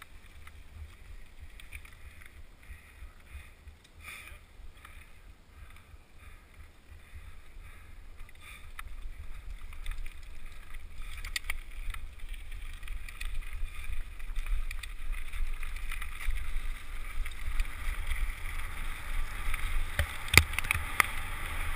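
Mountain bike riding fast on a gravel road, heard through a helmet camera's microphone: low wind buffeting on the mic and the hiss and crunch of tyres on loose gravel, with scattered rattles and knocks. It grows louder as speed builds from about nine seconds in, with a sharp knock near the end.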